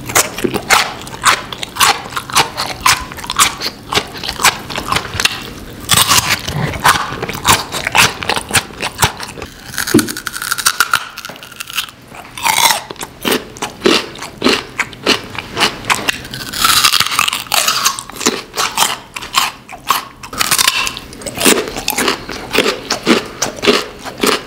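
Loud, close crunching and chewing as large chunks of white radish are bitten off and eaten, with many crisp crunches one after another.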